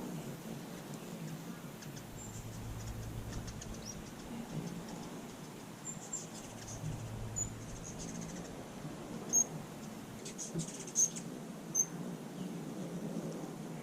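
Hummingbirds chittering around a feeder: scattered thin, high-pitched chips and squeaks, with three sharper, louder chips in the last few seconds. A low hum comes and goes twice.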